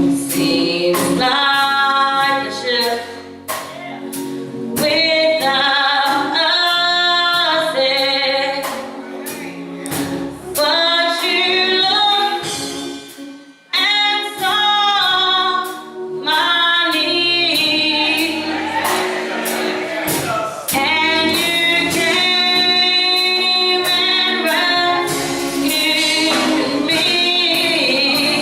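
A gospel choir singing with instrumental accompaniment, with sharp percussion strokes throughout. The choir breaks off briefly about halfway through, then comes back in.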